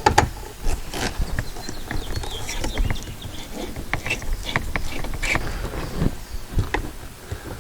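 Irregular light clicks and rattles of hand tools and driver bits being handled and sorted.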